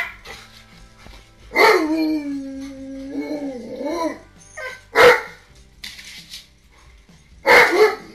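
Siberian husky giving one long howl of about two and a half seconds that dips in pitch and then rises. Short sharp dog barks come at the start, about five seconds in and near the end.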